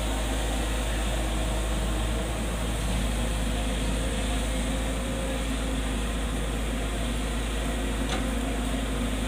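Diesel engine of a JCB backhoe loader running steadily while its digger arm works.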